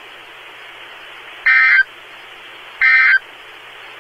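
NOAA Weather Radio end-of-message signal: two short, loud buzzy digital data bursts (SAME code), about one and a half seconds in and again near three seconds, over steady radio hiss. The bursts mark the end of the weekly warning-alarm test broadcast.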